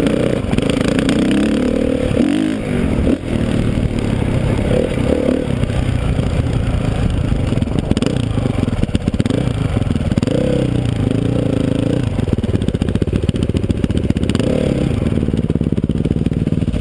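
Dirt bike engine heard close up, revving up and down several times as it is ridden over a rough trail, with the bike rattling and clattering over rocks.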